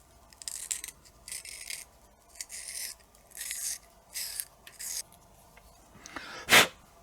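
Cotton bud scrubbing inside a small motor's housing: six short rubbing strokes, about one every second, then a single louder thump near the end.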